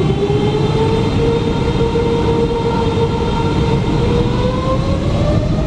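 Boeing 777-300ER's GE90-115B turbofan engine heard from inside the cabin beside the wing, running with a steady rush and a whine. About four seconds in, the whine begins to climb in pitch as the engine spools up.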